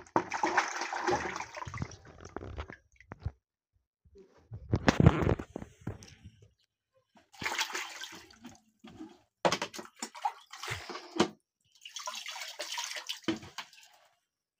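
Hands swishing and splashing water inside a plastic bucket, in about five separate bursts with short pauses between.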